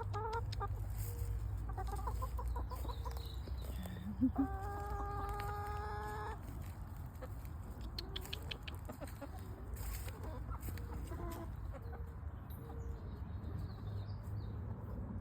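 Free-range hens clucking and calling, with a long drawn-out call about four to six seconds in, over a steady low rumble.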